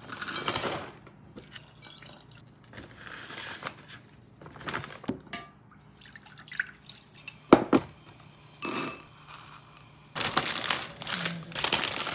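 Kitchen handling sounds: dry chickpeas rattling into a stainless steel pot, bottled water poured into it, a few clicks, a sharp knock and a ringing clink, then a plastic bag crinkling near the end.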